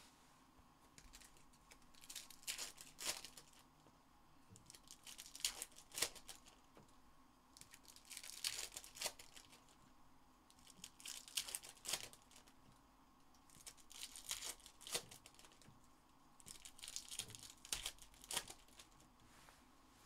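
Trading-card packs in shiny foil wrappers being torn open one after another. The wrappers crinkle and tear in about six short bursts, roughly three seconds apart.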